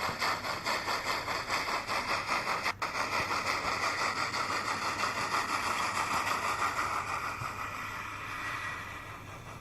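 Steam-locomotive sound from a model T20 tank engine's LeoSoundlab sound decoder, played through the model's loudspeaker: an even chuff beat of about four a second. There is a momentary break about three seconds in, and the beats soften over the last couple of seconds.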